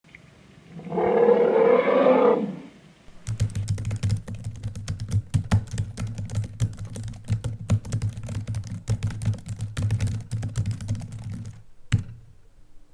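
Rapid, uneven keyboard typing clicks over a steady low hum, ending with one sharp click. About a second in, a loud sound effect lasts about two seconds before the typing begins.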